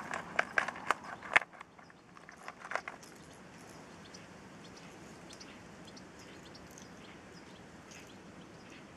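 Rustling and clicking from a backpack being rummaged right beside the microphone, with one sharp knock, during the first three seconds; after that, faint steady outdoor background with a few light ticks.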